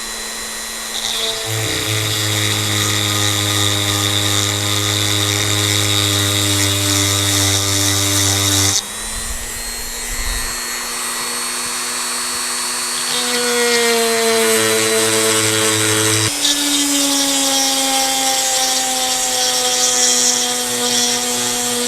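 Dremel rotary tool with a chainsaw-sharpening stone whining as it grinds the chain's cutters, with a gritty grinding hiss. The pitch jumps between several separate grinding passes and droops slightly as the stone bears on a tooth.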